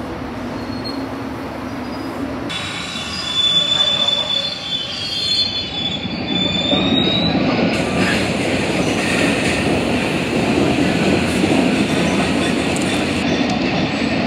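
MBTA Red Line subway train moving through the station: the wheels squeal in a high, slightly rising tone from about three seconds in for several seconds, then the cars give a louder, steady rumble on the rails.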